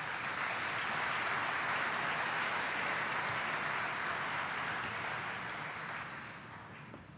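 Audience applauding in a large hall: steady clapping that dies away over the last second or so.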